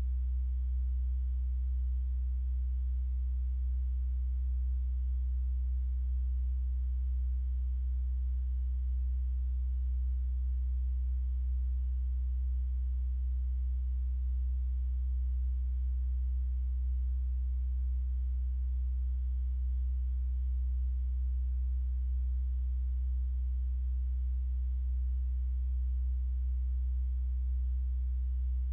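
A steady low hum, unchanging in pitch and level, with nothing else heard over it.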